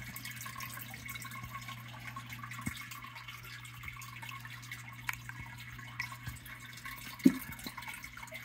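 Water dripping and lightly splashing as a hand gropes in a plastic cup of water and lifts out, over a steady low hum. A few small sharp ticks, with one louder click about seven seconds in.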